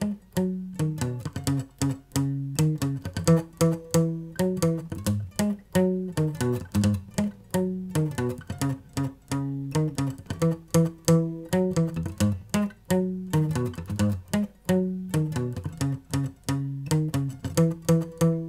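Steel-string acoustic guitar played solo with no singing: picked notes and chords in a quick, steady rhythm, with a strong low line under the melody.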